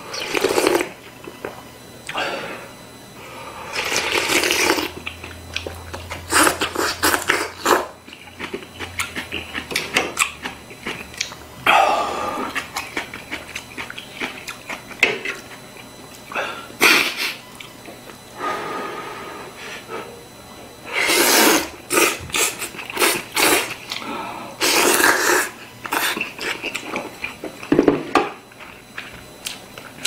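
A person eating knife-cut noodle soup: loud slurps of hot broth and noodles, some drawn out for about a second, coming every few seconds between quieter chewing.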